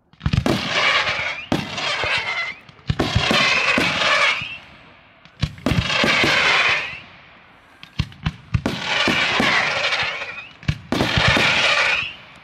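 Daytime aerial fireworks: about six bursts of rapid crackling, each lasting roughly a second, with single sharp bangs in the gaps between them.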